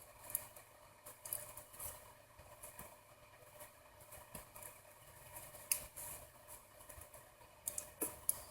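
Faint scattered small clicks and light scrapes of a smartphone's small parts being handled, as the rear and front camera modules are detached from the main board. A few sharper ticks come near the end.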